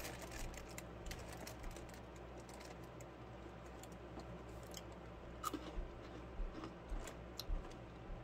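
Faint scattered clicks and taps of a cardboard cereal box being handled and closed, with a few louder taps in the second half.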